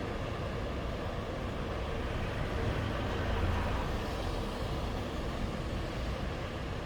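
Sea waves washing onto a beach: a continuous wash of surf that swells about three and a half seconds in and then eases off.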